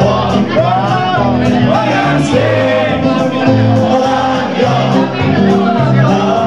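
Live band music with saxophone, over a steady, even bass line that changes note about every half second.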